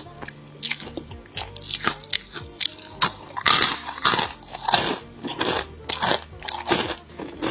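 Close-miked crunching and chewing of crisp dried fruit chips, a quick run of sharp crunches, thickest a little past the middle.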